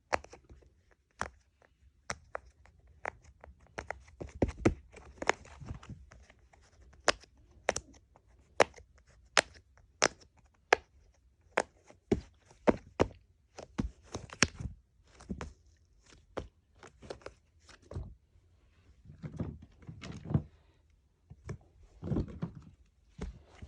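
Fidget toys being handled and played with: a string of sharp clicks and taps at an irregular pace, with a few short rustling scrapes near the end.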